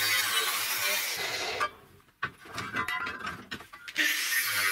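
Angle grinder with a thin cutting disc cutting through steel square tubing, a steady grinding whine over a motor hum. It breaks off sharply about a third of the way in, a quieter stretch with a few knocks follows, and the grinder cuts again near the end.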